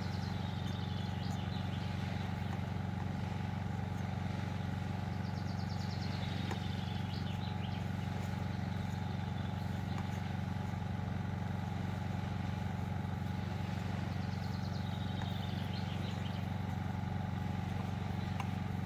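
A steady low motor hum that holds an even pitch throughout, with a few short, high descending chirps over it near the start, in the middle and toward the end.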